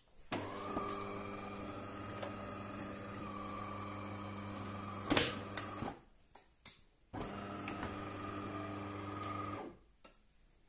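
De'Longhi ESAM 2200 espresso machine's newly replaced vibratory water pump buzzing in a steady hum for about five seconds, a sharp click near its end, then a couple of short knocks before the pump buzzes again for about two and a half seconds and stops. This is the machine's pump run after grinding, the stage the owner is troubleshooting.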